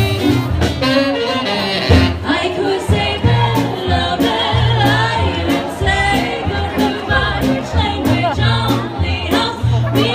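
Swing band playing with a singer: a steady bass line under a wavering vocal melody, with regular drum strikes.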